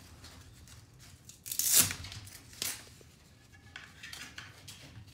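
A Velcro strap on a bike wheel stabilizer is ripped open once, a short loud tear about a second and a half in. A few light clicks and rustles of handling follow.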